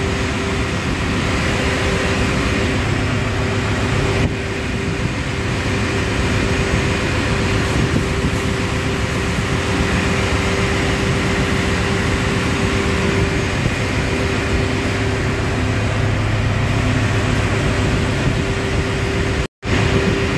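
Steady ventilation and machinery noise inside a ship's tank, with a constant hum and one held tone, as the air blower feeds fresh air through the flexible duct during enclosed-space work. It cuts out for a moment near the end.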